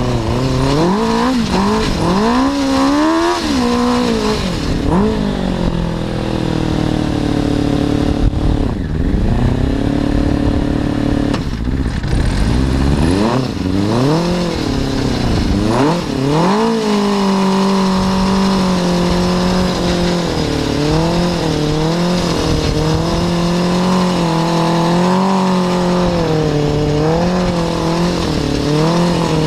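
A Suzuki RF600 motorcycle engine (an inline-four) powering an off-road buggy, heard from on board while driving. The revs rise and fall again and again through the first half, then hold steadier, with small rises and dips, from about halfway through.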